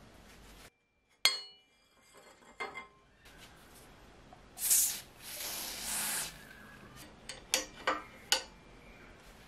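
A sharp ringing clink of steel bicycle parts, then an aerosol lubricant sprayed through a straw into a bicycle headset: a short hard hiss followed by a steadier hiss of about a second. Near the end, a few sharp metallic clicks as an adjustable wrench is set on the headset nut.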